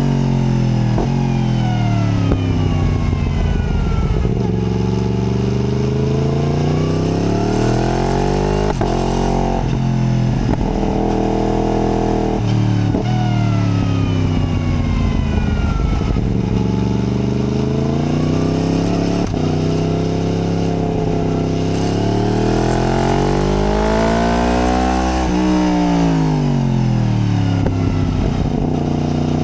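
Yamaha MT-10's crossplane inline-four engine, recorded on board while riding a mountain pass. The engine note climbs and falls again and again as the rider accelerates and backs off through the bends, with quick pitch drops at gear changes.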